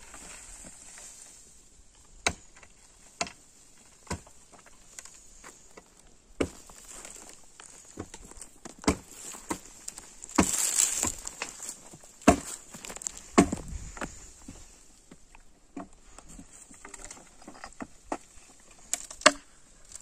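Scattered knocks and clatters of hand demolition on an old stone-and-timber building, with timbers, nails and stones being worked loose. About ten seconds in comes a longer scraping, rustling burst, like debris shifting or falling.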